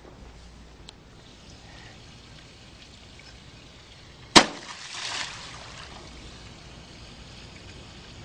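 A DVD player hitting the water of a swimming pool: one sharp smack about four seconds in, then a brief splash and wash of water lasting about a second.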